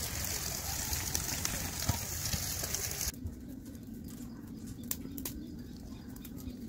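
A steady rushing noise of wagon wheels rolling along a wet road cuts off suddenly about three seconds in. Then a wood fire burns quietly in a steel wheel-rim fire pit, with a few sharp crackles.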